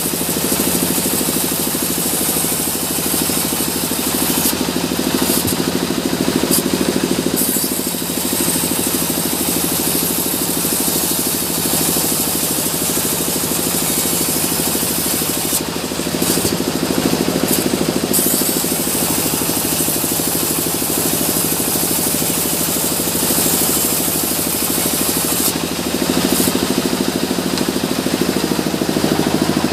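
Sawmill bandsaw running steadily with its drive machinery humming, and a high hiss swelling three times, about five seconds in, around sixteen and near the end, as the blade cuts through the log.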